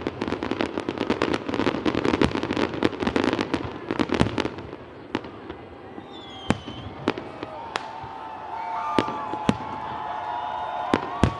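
Aerial fireworks bursting: a dense run of crackling pops for the first four and a half seconds, then sparser single bangs, about eight of them, with wavering held tones underneath in the second half.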